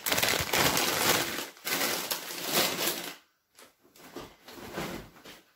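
Crinkly plastic snack bags of pretzels rustling and crackling as they are handled and set aside for about three seconds, followed by faint scattered rustles and light knocks.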